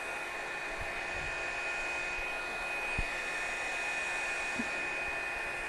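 Revlon One Step hot-air round-brush hair dryer running steadily: an even rush of air with a thin, high motor whine held at one pitch.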